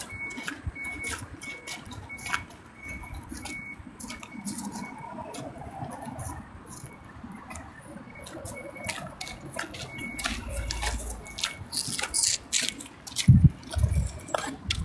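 Rustling and clicking of a phone's microphone being handled and rubbed against clothing while walking, with a faint short high beep repeating about three times a second for the first few seconds and again near the middle, and a brief low rumble partway through.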